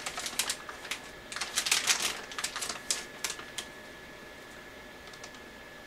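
Cardboard and plastic packaging handled by hand: a quick, irregular run of crinkles and clicks for about three and a half seconds, then it stops.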